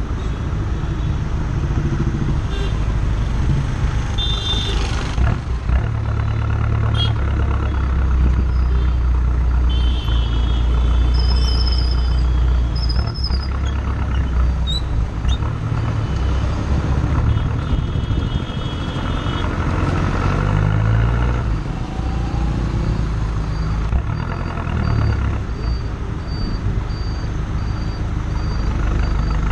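Exhaust note of a Ford Aspire TDCi's four-cylinder turbodiesel through a partial free-flow exhaust with an extension tip, heard at the tailpipe while driving: a low burble that swells and eases with the throttle, over road noise. Short high beeps from other traffic cut in a few times.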